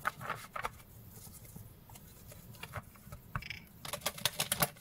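A deck of cards being shuffled by hand: soft quick clicks and flicks of card edges, thinning out for a moment about a second in, then picking up again and growing busier toward the end.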